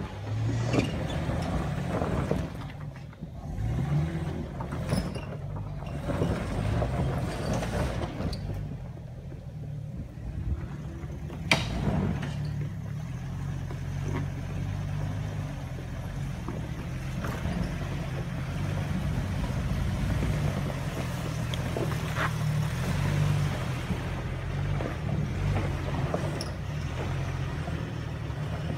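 Jeep Wrangler engines running at low speed with surges of revving as they crawl over rock ledges, a steady low drone under the whole stretch. One sharp knock a little before the middle, like tyre or underbody on rock.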